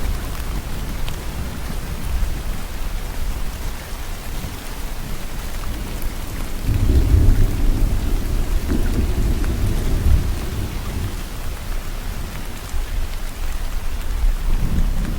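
Steady heavy rain with rolling thunder. A low rumble of thunder swells about seven seconds in and fades over several seconds, and another begins to build near the end.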